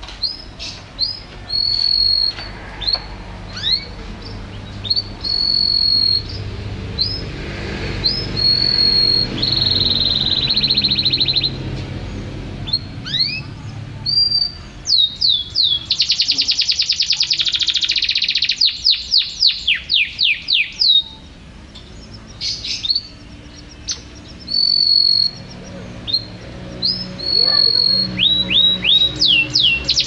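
Domestic canary singing a long, varied song: held high whistles and short downward-sliding notes, broken by fast rattling trills about halfway through and again near the end.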